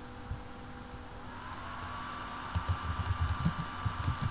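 Typing on a computer keyboard: a quick run of keystrokes starts about two and a half seconds in, over a faint steady whine.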